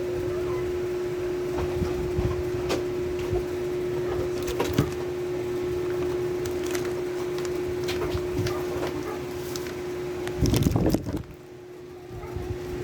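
A steady hum runs under scattered light clicks and knocks of handling. About ten seconds in comes a brief louder burst of handling noise, after which the hum cuts out for about a second before coming back.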